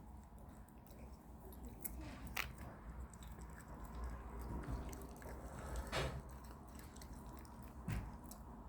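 Fox cub chewing and biting its food, with irregular sharp clicks.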